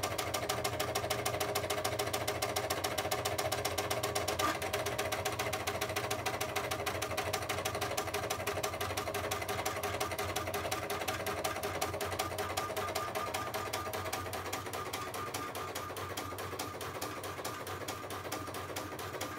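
HP 7475A pen plotter drawing, its motors driving the pen carriage and paper with a steady whir and rapid, even ticking. It grows a little fainter toward the end.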